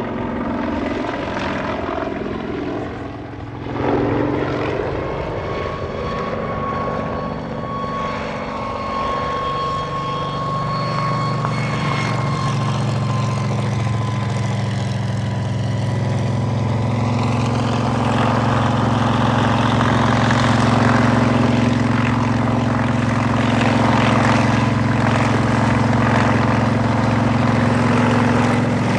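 Kamov Ka-26 helicopter in flight, its twin radial piston engines and coaxial rotors running steadily. It grows louder over the second half as it passes low and close.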